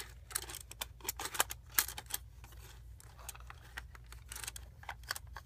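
Small plastic toy figurines clicking and tapping against a hard plastic playset as they are handled, in quick irregular clicks over a faint low hum.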